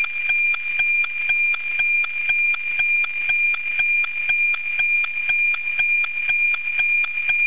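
NOAA 19 weather satellite's APT picture signal, FM-demodulated by an RTL-SDR receiver: a steady high whistling tone with rapid, evenly spaced ticking several times a second, the sync pulses of the image lines. The signal is strong and clean as WXtoImg records the image.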